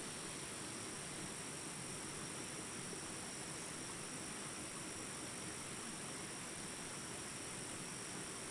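Jungle ambience recording of small rapids: a steady rush of running water under a constant high hum of insects.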